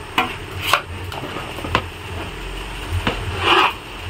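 Metal ladle stirring chilli-coated raw mango pieces in a large aluminium bowl as oil is mixed in for mango pickle: a few separate scrapes and clinks against the bowl, with a longer scrape about three and a half seconds in.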